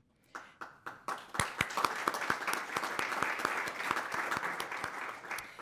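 Audience applauding, many people clapping at once. The applause starts a moment in, fills out about a second in, and thins out near the end.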